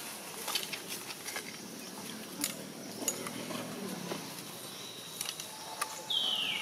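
A macaque's short, high-pitched squeal near the end, falling in pitch over about half a second, over an outdoor background with scattered faint clicks.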